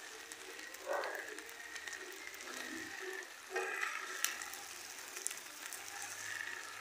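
Plastic spoon stirring spaghetti in a steel pot on the stove: soft scraping with a few light clicks of the spoon against the pot.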